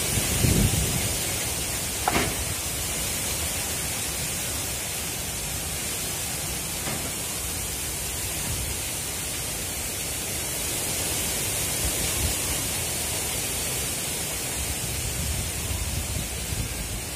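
Steady hiss of wind with low rumbling gusts buffeting the microphone, strongest about half a second in and again near the end, and a short knock about two seconds in.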